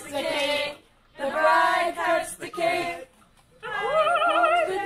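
A high-pitched voice vocalising in a sing-song way without clear words, in three short phrases, the last ending on a wavering held note.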